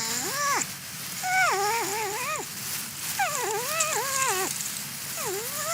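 Porcupine vocalising: about four wavering, pitched calls, each roughly a second long, sliding up and down in pitch.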